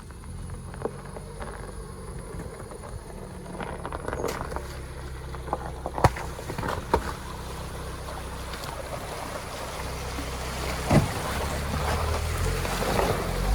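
A vehicle engine running, with a few sharp knocks over it. The engine noise grows louder toward the end as it moves off over snow.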